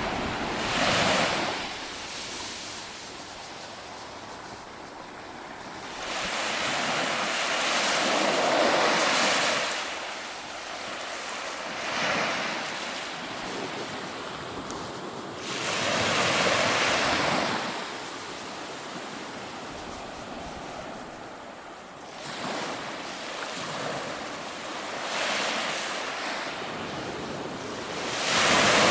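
Sea waves breaking on a beach: about six surges of surf, each swelling and washing back, the loudest near the end.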